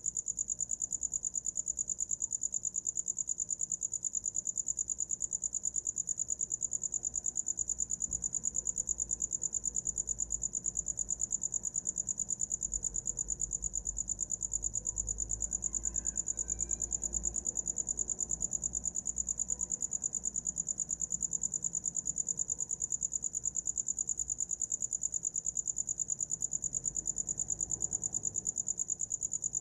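A cricket singing a steady, rapidly pulsed, high-pitched trill without pause.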